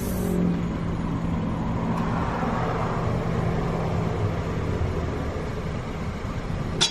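Steady low rumble of a vehicle engine and road noise, with a sharp click right at the end.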